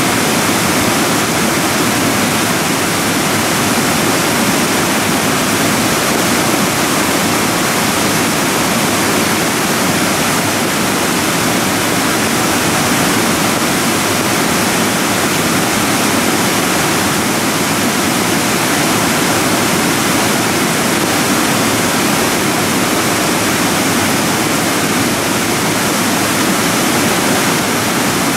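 Debris flow of muddy slurry and stones moving down a moraine slope, a loud, steady rushing noise with no let-up.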